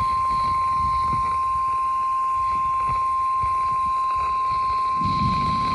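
NOAA Weather Radio warning alarm tone: one steady, loud, high-pitched tone held without a break, signalling that a warning message is about to be read.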